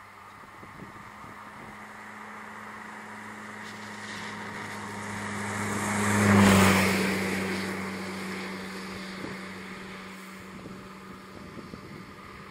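A motor vehicle passing by: its engine hum and road noise grow steadily louder, are loudest about six and a half seconds in, then fade away.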